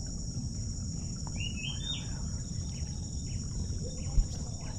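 Steady high-pitched drone of a tropical insect chorus, with a few short bird chirps about one and a half seconds in, over a low rumble. A brief low thump just after four seconds.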